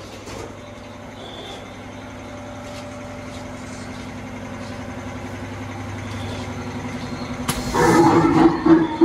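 A steady low hum slowly growing louder. About seven and a half seconds in, a sudden loud, harsh sound cuts in and carries on to the end.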